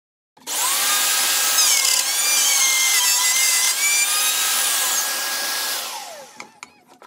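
Handheld router running and cutting a notch in a melamine-faced chipboard panel along a plywood template, its high whine dipping and recovering as the bit takes load. It starts about half a second in, is switched off near six seconds and winds down with a falling pitch, followed by a few light knocks.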